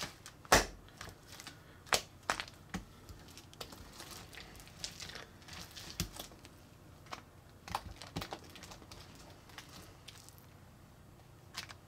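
Chocolate milk slime being squeezed, pulled up and pressed down by hand on a glass plate: irregular sticky crackles and pops as it peels off the glass, with a sharp pop about half a second in.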